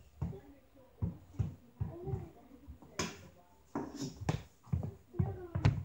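Hockey stick and stickhandling ball knocking on a wooden floor: an uneven run of quick taps and thumps, about two to three a second, as the ball is worked back and forth with the blade.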